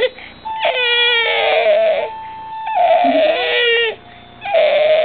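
A baby crying out loudly in three wails, each about a second long.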